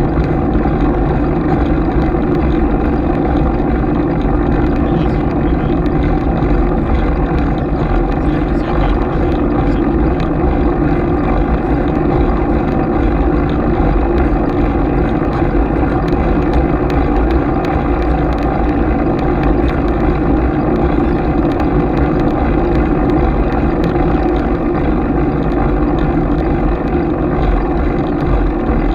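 Steady riding noise picked up by a bicycle-mounted GoPro: rumble from the tyres and the road, wind on the camera, and faint rattling clicks throughout.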